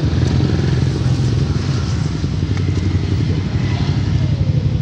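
A motorcycle engine running steadily, a low, even engine sound with a fast pulse and no change in level.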